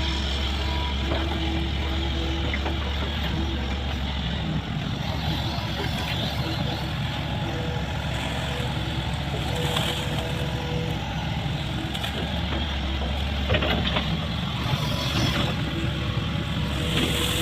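Hydraulic excavator's diesel engine running steadily, its low note shifting about four and a half seconds in, with a few short knocks as it works the ditch.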